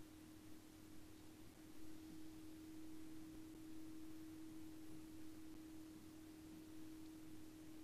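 Near silence with a faint steady hum: one constant low tone with a fainter, lower one beneath it, over light hiss.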